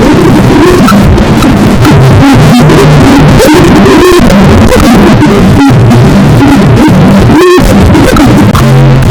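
A sneezing sound put through an Image-Line Vocodex vocoder and stacked effects, turned into a loud, clipped, distorted noise. Chord-like held tones shift every second or so beneath it.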